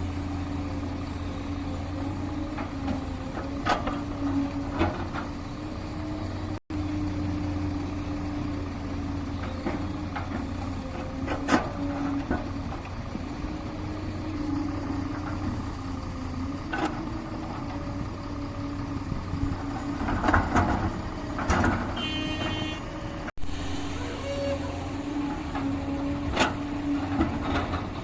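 Heavy diesel engine of an excavator at work running steadily, with scattered sharp knocks and clanks from the machinery.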